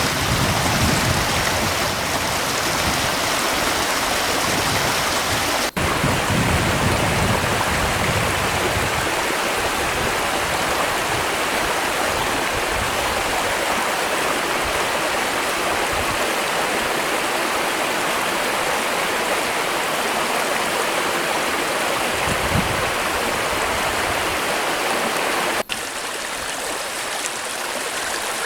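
Fast-flowing spring river: a steady churning rush of water. It breaks off for an instant about six seconds in and again near the end, after which it is a little quieter.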